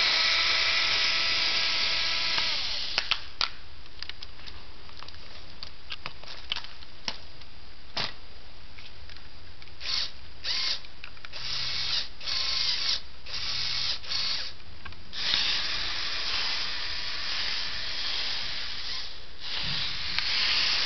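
Small electric motors and plastic gears of a remote-controlled Lego Technic truck whirring in runs. A steady whine for the first few seconds, then scattered sharp clicks, then several short whirring bursts and a longer run near the end.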